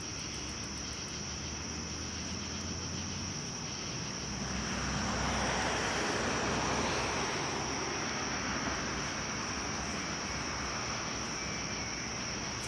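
Distant rushing engine noise from something passing by, swelling about four seconds in and then slowly fading.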